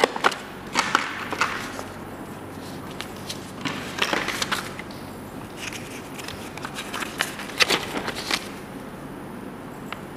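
Paper and thin cardboard being handled: a small cardboard product box's lid and a folded paper installation guide rustling and scraping, in several short bursts with a few sharp clicks and taps.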